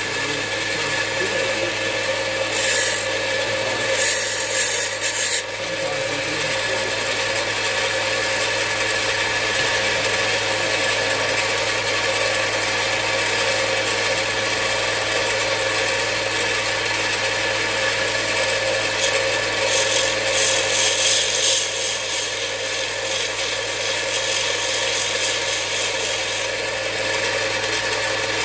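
Parkside combination bench grinder and belt sander running steadily, with a small steel screwdriver tip being ground on the abrasive belt. The grinding rasp comes in short spells: briefly about three seconds in, then for about a second and a half, and again for a few seconds around twenty seconds in.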